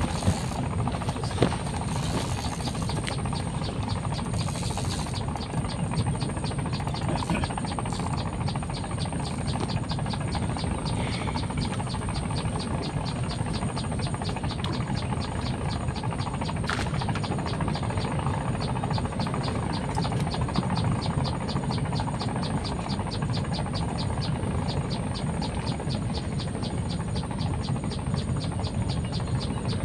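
Insects chirping: a fast, even pulsing with a steady high-pitched tone over a low, steady rumble. A couple of sharp clicks come near the start.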